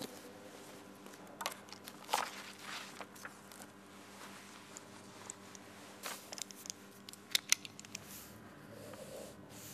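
Paper pages of a book being handled and leafed through: irregular crisp rustles and ticks, a few sharper ones, over a low steady hum.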